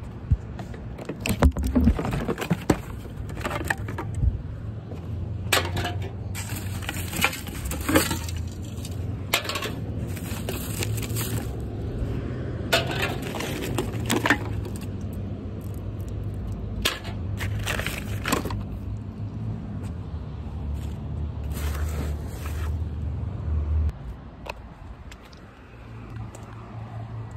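Plastic bottles and aluminum cans crackling and clinking as a hand rummages through trash, in repeated short clusters of rustles and clatters, over a low steady hum that drops away near the end.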